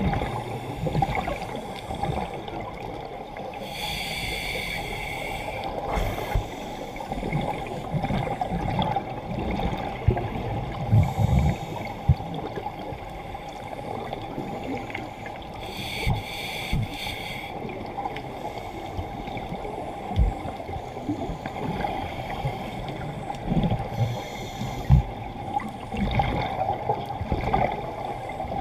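Underwater ambience from a diving camera: a steady low rumble of moving water with scattered low knocks, and a scuba regulator's exhaled bubbles rushing past in bursts about four seconds in and again around sixteen seconds.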